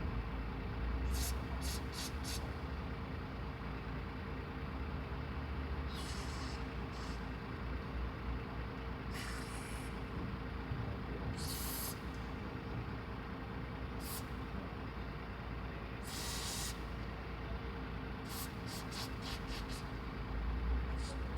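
Steady low machine hum, with short hisses every few seconds, some of them quick runs of several hisses.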